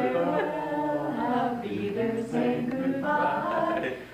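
A small group of people singing together unaccompanied, several voices at once, with a short break near the end.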